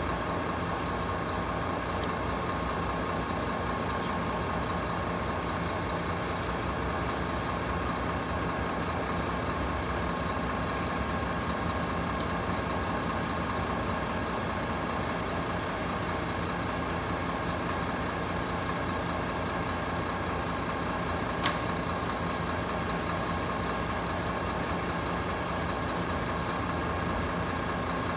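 Steady engine idling and road traffic noise, with a steady high whine running underneath. One sharp click comes about three-quarters of the way through.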